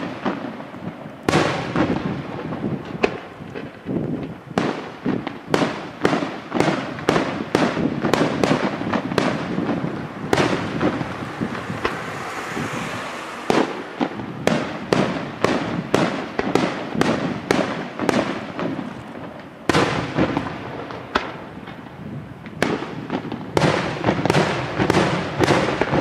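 Aerial firework shells bursting in quick succession, a sharp bang roughly every half second, with crackle and hiss between the bangs. About halfway through the bangs thin out for a couple of seconds under a steady hiss, then pick up again.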